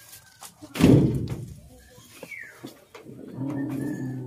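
A heavy thump about a second in, the loudest sound, followed by a short falling chirp and, near the end, a low steady hum lasting about a second.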